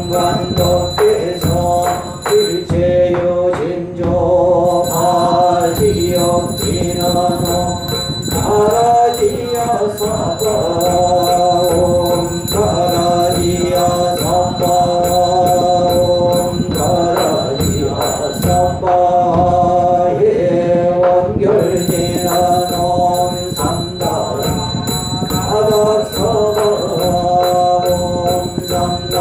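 Korean Buddhist yeombul chanting: a monk and congregation chanting in unison on a short melody that repeats phrase by phrase, with held notes over a steady percussive beat.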